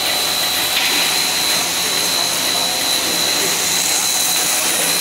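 Puffed corn snack extruder line running: a loud, steady machine hiss with a thin high whine over it.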